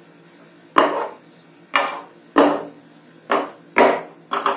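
Black spatula stirring and scraping thick, fully cooked rava kesari against a nonstick frying pan: about six strokes, each a sharp scrape that quickly fades, starting about a second in.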